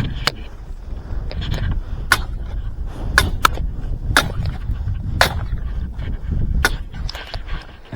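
Thin new ice cracking and crunching as a canoe is rammed into it. About seven sharp cracks ring out over a low, continuous grinding rumble: the ice is not yet giving way.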